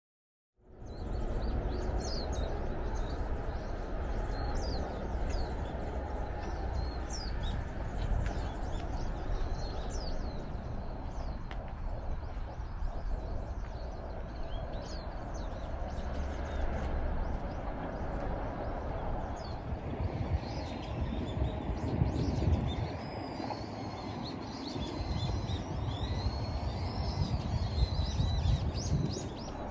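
Small birds chirping, many short high calls throughout and a longer run of warbling near the end, over a steady low rumble of background noise.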